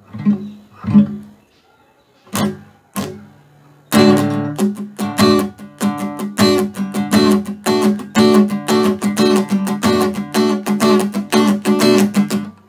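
Acoustic guitar strummed in a sixteenth-note pattern with fret-hand muting. A few separate strums come first, then from about four seconds in a steady run of quick down-up strokes: muted strokes, with the chord ringing out on the stressed ones.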